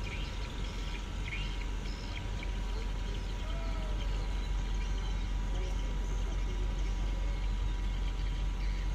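Steady low rumble of idling heavy diesel engines, with faint voices.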